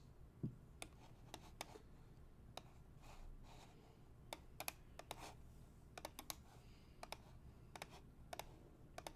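Faint computer keyboard and mouse clicks: about twenty sharp ticks, irregular and sometimes in quick pairs, as a randomized list of names is selected and copied.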